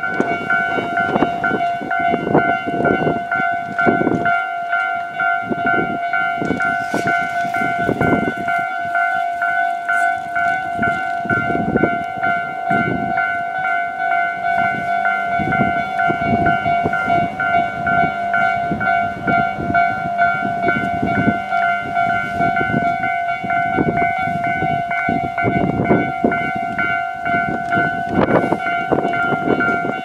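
Japanese level-crossing warning bell ringing without a break, a fast pulsing clang held on one steady pitch, over irregular low knocks and rumble.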